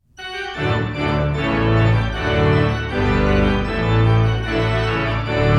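Outro music: sustained organ-like keyboard chords over a low bass line, the chords changing every second or so.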